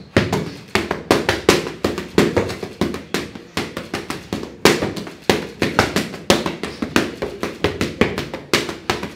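Boxing gloves hitting focus pads in fast combinations, sharp punch impacts about three to four a second with short gaps between flurries; one of the hardest lands about halfway through.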